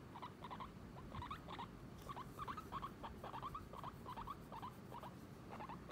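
Skinny pig (hairless guinea pig) making a steady run of short, soft squeaks, each dropping slightly in pitch, often in pairs, two to four a second.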